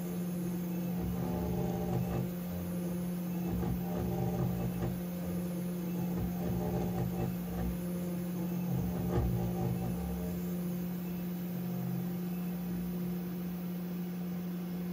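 Spindle of a desktop CNC router running with a steady hum as a small end mill orbits and shaves a brass ejector pin flush in an aluminum mold, with uneven low cutting noise underneath.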